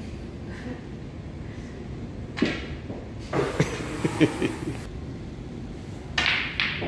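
Pool balls struck with a cue and clacking together: a few sharp clicks between about three and a half and four and a half seconds in, the loudest just past four seconds. A brief noisy burst follows near the end.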